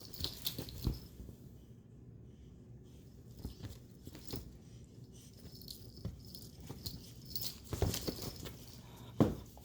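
Scattered knocks, taps and rustling as two pet monkeys scramble about on their leashes, getting tangled up. The louder knocks come about half a second in and again near the end.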